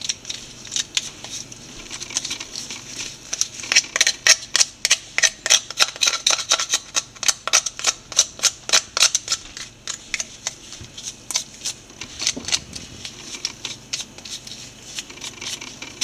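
Small knife scraping and picking inside a blue crab's shell as the belly is cleaned out, a quick run of sharp clicks and scrapes several times a second that thins out in the last few seconds.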